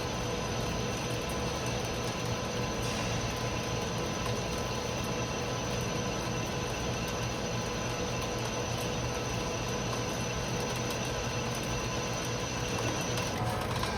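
Mori Seiki Frontier L-II CNC lathe running under power: a steady machine hum with several constant whining tones over a mechanical noise, and a high whine dropping out near the end.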